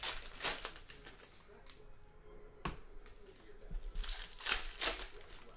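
Trading-card pack wrappers being torn open and crinkled in a few short bursts, with a sharp click a little over halfway through.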